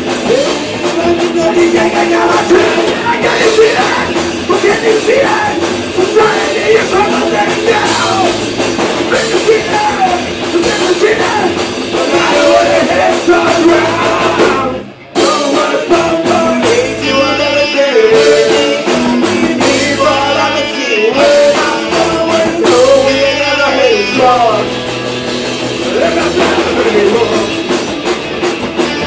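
Punk rock band playing live: guitars, drum kit and vocals, with a split-second break about halfway through.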